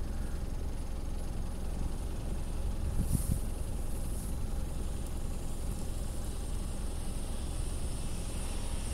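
Skoda Kodiaq SUV ploughing through deep snow, its engine working under load as the wheels spin and throw up snow, heard as a steady low rumble with a brief louder surge about three seconds in.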